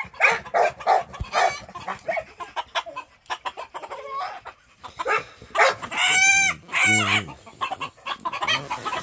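Fighting roosters clucking and squawking in a run of short calls, with a loud drawn-out cry about six seconds in and a shorter one just after.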